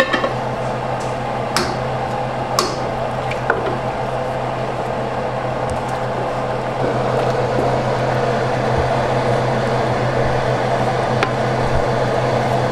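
Stock being stirred into a roux in a pot over a burner: a steady low hum and hiss, with a few sharp clicks of the spoon against the pot in the first few seconds and one more near the end. It gets a little louder about seven seconds in.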